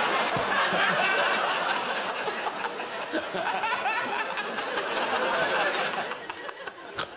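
A studio audience laughing together, the laughter dying down near the end.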